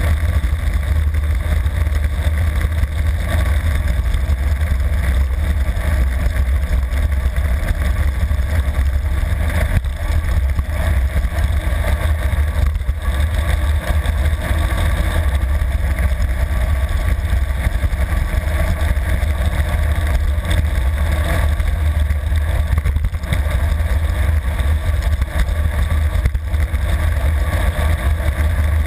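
Wind buffeting a handlebar-mounted camera's microphone as a road bike descends at high speed: a loud, steady low rumble with a thin rush of air and tyre noise above it.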